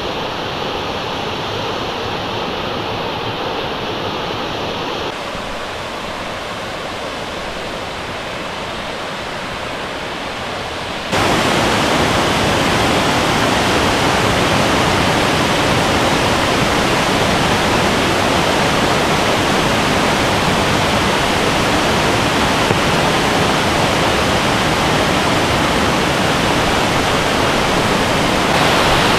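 Steady rush of falling water from a waterfall. It becomes much louder and fuller about eleven seconds in.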